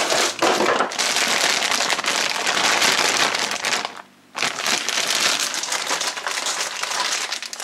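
Clear plastic bag of frozen breaded cauliflower bites crinkling loudly as it is pulled from its cardboard box and handled, with a short break about four seconds in.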